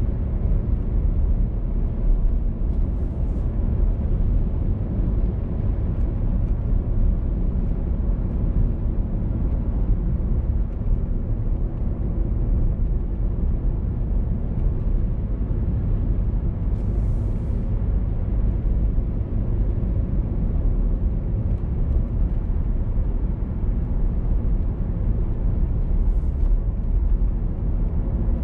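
A car driving along: a steady low rumble of road and tyre noise that does not change.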